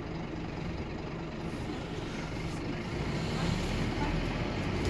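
Scania Omnilink bus's diesel engine running with road noise, heard from inside the passenger saloon; the engine drone grows louder about three seconds in.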